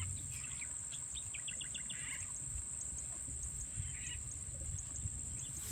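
Steady high-pitched insect drone, with wind rumbling on the microphone and a short run of quick chirps about a second and a half in.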